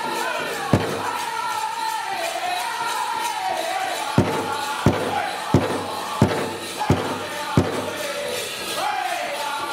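Powwow drum group singing a men's chicken dance song: high voices that slide down in pitch over and over, with one loud drum beat about a second in and a run of six evenly spaced loud drum beats from about four seconds in.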